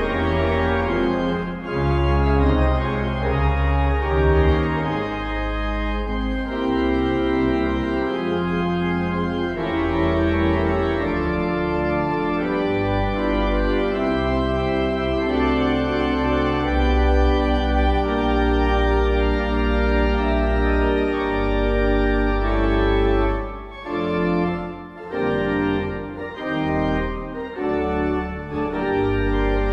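Church organ playing slow, held chords over deep bass notes, with short breaks between phrases near the end.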